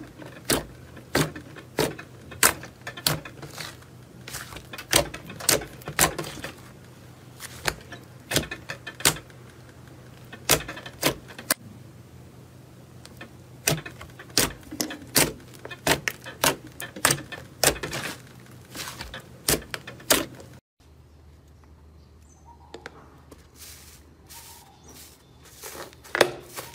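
Fingers pressing and poking thick slime, making a string of sharp wet pops and clicks, about one or two a second. About twenty seconds in it goes quieter as a different slime is handled, with a few more clicks near the end.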